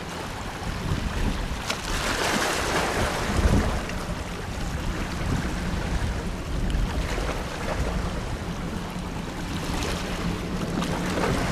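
Wind noise on the microphone over the wash of waves, with a faint steady low drone of distant fast boats' engines.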